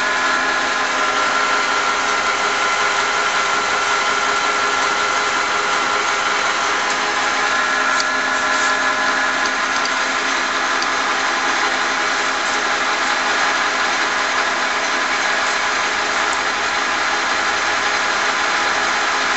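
LeBlond 16-inch toolmakers lathe running under power: its 5 hp main drive motor and spindle drive make a steady hum with several steady whining tones. A few faint clicks come about eight seconds in.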